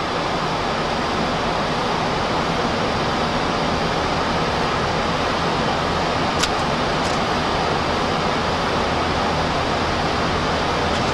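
Steady rushing cockpit noise of a Boeing 737-400 in the climb: airflow over the flight deck with a low steady hum underneath. A single brief click about six seconds in.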